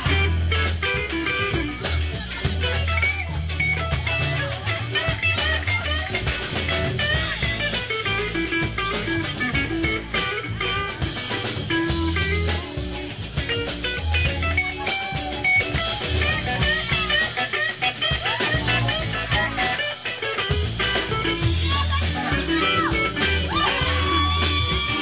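Live band playing an instrumental passage: guitar lines over bass and a drum kit in a blues-rock groove. A long held high note comes in near the end.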